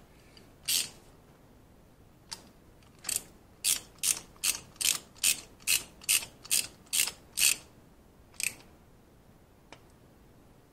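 Ratchet wrench clicking as a spark plug is run back into the cylinder head. Two separate clicks come first, then a steady run of about a dozen clicks at two to three a second, and a last click after a pause.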